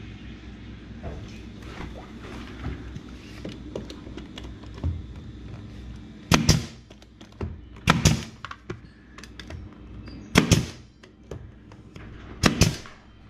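Pneumatic trim nailer firing four times, about two seconds apart, each a sharp crack with a short tail, driving nails into a small piece of wooden baseboard trim. Light handling clicks come before the first shot.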